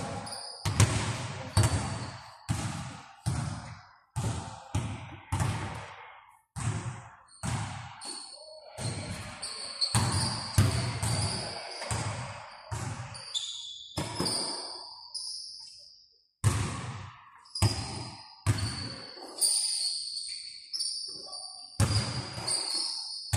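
Basketball bounced hard on a gym floor, about one and a half bounces a second with a few short breaks, each bounce echoing in the hall. High-pitched sneaker squeaks sound over it through much of the stretch.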